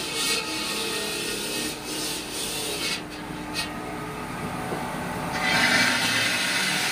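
A stone being cut by a saw: a steady grinding rasp that dips for a moment and then grows louder about five seconds in.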